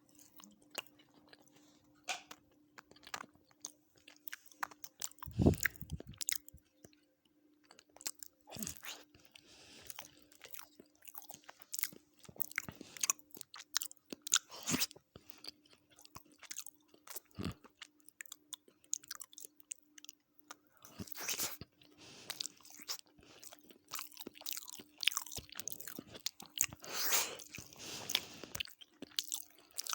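Close-miked eating of chicken biryani with raita and salad: irregular crunching, biting and wet chewing with mouth clicks. A steady low hum runs underneath, and there is a dull thump about five seconds in.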